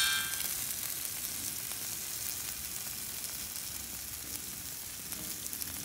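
Beef and vegetables sizzling steadily in a steel frying pan on a butane camp stove, a continuous crackling hiss. A short ringing tone falls away right at the start.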